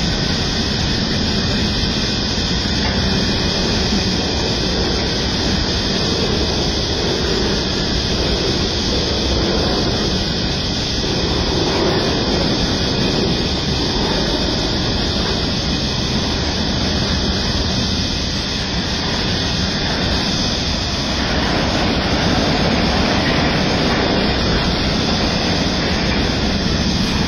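Loaded coal hopper wagons of a long freight train rolling past on the rails, a steady rumble of wheels on track that never lets up.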